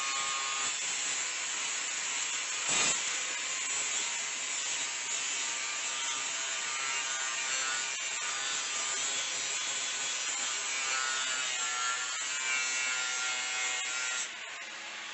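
A power tool abrading the steel of a rusted tailgate, stripping off the corrosion: a steady, harsh scouring with a faint motor whine, cut by one sharp click about three seconds in. It stops suddenly just before the end.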